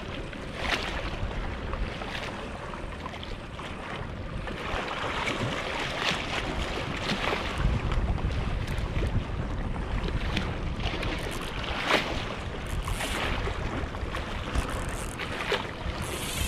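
Small waves washing and splashing against shore rocks, a short surge of hiss every few seconds, with wind rumbling on the microphone.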